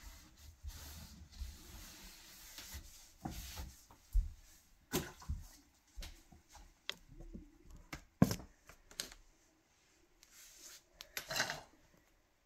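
Hand sanding of a wooden cabinet-door frame: repeated rubbing strokes for the first few seconds. Then scattered knocks and handling clatter, the loudest a sharp knock about eight seconds in.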